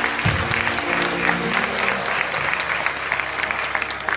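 Church congregation clapping in applause for the presented baby, a dense steady patter of many hands, with sustained chords of instrumental music underneath.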